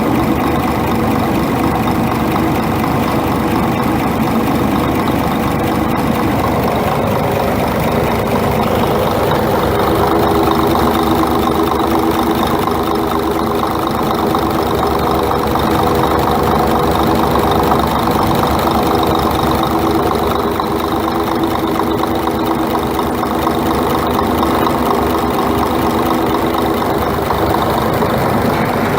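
Scania R420 truck's six-cylinder diesel engine idling steadily with an engine knock.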